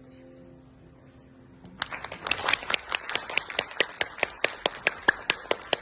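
The last chord of the piece dies away, then applause starts about two seconds in: hand claps coming several times a second.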